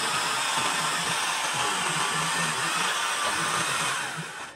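Handheld power tool running steadily with a loud hissing whir, tailing off near the end.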